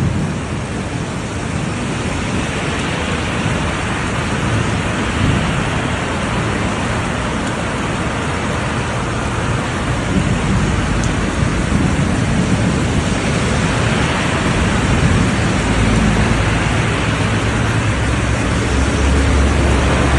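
Heavy rain pouring down steadily as a dense hiss, with a low rumble growing stronger in the last few seconds.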